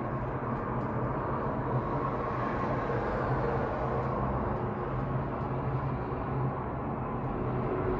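Steady low hum and rumble inside a moving cable-car gondola cabin as it rides along the line, with a constant low drone and no separate knocks or clanks.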